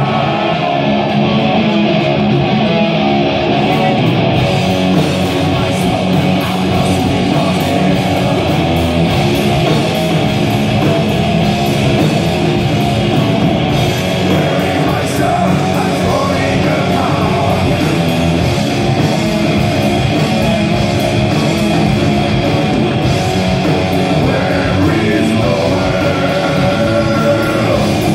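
A doom metal band playing live: heavy electric guitars, bass guitar and a drum kit, with cymbal strikes coming in strongly about four seconds in.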